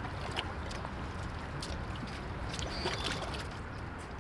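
Lake water sloshing against a concrete seawall over a steady low background noise, with a few faint clicks and a short high chirp just before three seconds in.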